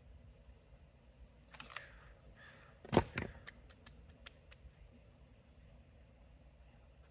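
An axe strikes a log once, a single loud chop about three seconds in, followed by a few short sharp wooden clacks.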